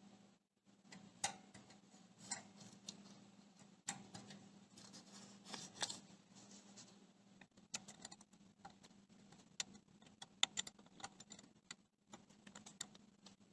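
Faint, scattered metallic clicks and taps of hand work on a Craftsman band saw's blade guide blocks as their set screws are tightened, with more of them in the second half. A faint steady low hum sits underneath.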